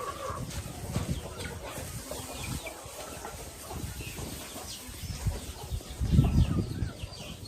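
Chickens clucking, with many short high chirps throughout, and a louder low rustling thump about six seconds in.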